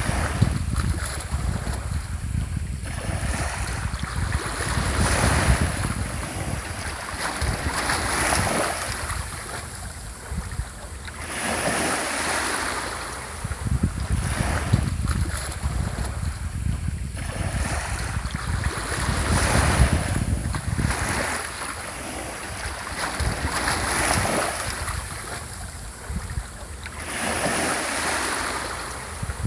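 Small waves washing onto a shore, each swelling and falling back every three to four seconds, with a low rumble of wind on the microphone.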